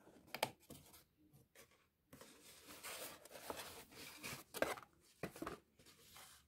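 Stiff cardstock being handled and slid into place, rustling and scraping, with a few light clicks and taps.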